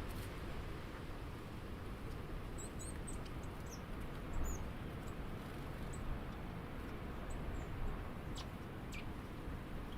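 Small birds giving scattered short, high chirps over a steady outdoor background hiss and low rumble, with a couple of faint clicks near the end.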